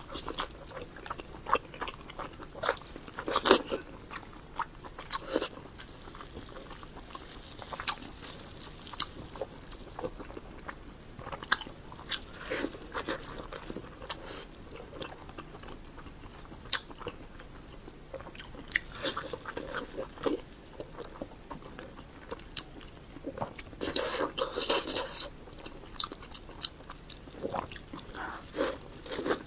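Close-miked eating of pork belly: bites and chewing with crunchy, clicking mouth sounds that come in irregular bursts every few seconds.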